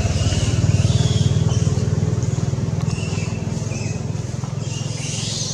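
A small engine running steadily, a low pulsing hum, with a few short high chirps over it.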